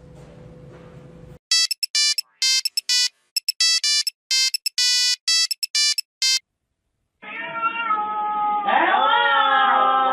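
A quick electronic tune of short, clean beeping notes, like a phone ringtone, lasting about five seconds. After a brief silence, a cat gives a long meow that rises and falls near the end.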